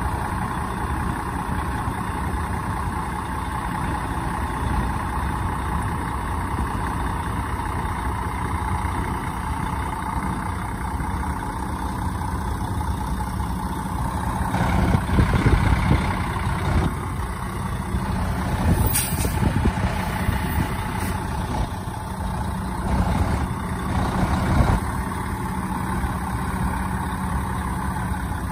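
Heavy diesel truck engine idling steadily, with a few louder stretches and a brief hiss about 19 seconds in.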